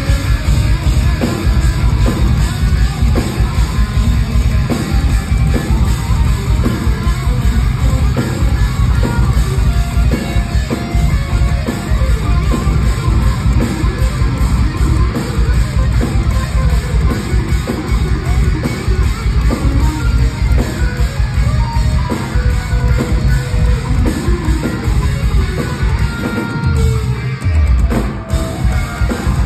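A metal band playing live and loud, with distorted electric guitars over a drum kit, heard from inside the crowd; the music thins briefly near the end.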